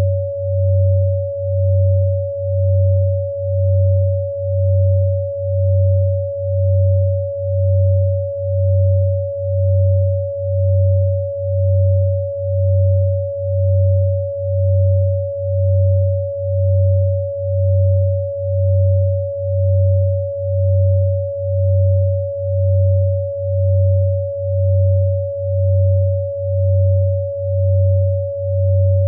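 Electronically generated pure sine tones: a steady mid-pitched tone over a low hum that throbs evenly about once a second. They are the healing-code frequencies 95, 96 and 562 Hz; the two close low tones beat against each other to make the throb.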